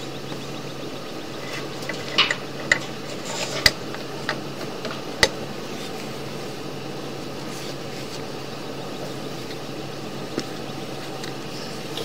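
Steady machine hum, with a few sharp clicks and knocks about two to five seconds in.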